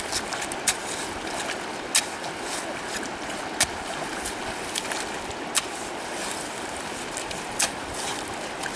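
Steady rush of a shallow river running over stones, with a sharp click every second or two as a hoe blade strikes stones in the riverbed while scraping up mud.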